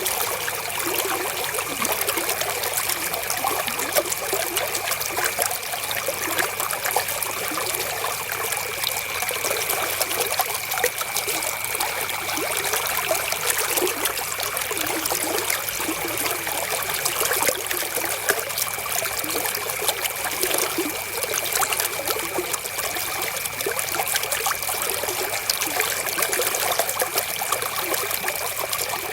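River water flowing and trickling over stones, a steady babble of small splashes with no let-up. A faint, steady high tone runs through it.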